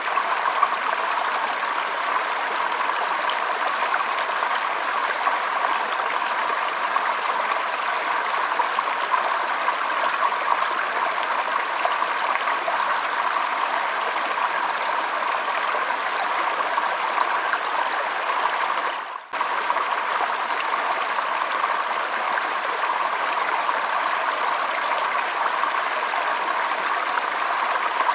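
Shallow stream flowing and trickling over its bed, a steady rush of water. The sound dips briefly about two-thirds of the way through, then carries on as before.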